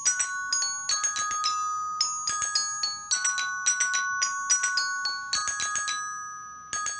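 Solenoid-driven glockenspiel playing a quick melody: each solenoid strike clicks sharply on a metal bar, and the notes ring on and overlap. The tune breaks off briefly about six seconds in, then a few more notes follow.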